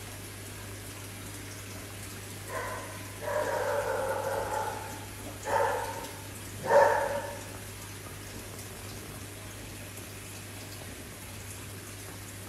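Steady running-water noise from an aquarium filter, with a low steady hum. From about two and a half to seven seconds in, four pitched, cry-like sounds rise above it: a short one, a longer one of about a second and a half, then two short ones, the last the loudest.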